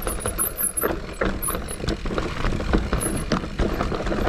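Santa Cruz Heckler mountain bike riding down dry dirt singletrack: tyres rolling over the trail with a steady low rumble and frequent short knocks and rattles from the bike as it runs over the ground.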